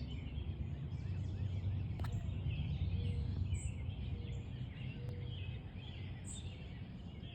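Small birds chirping and calling again and again over a steady low rumble of outdoor background noise.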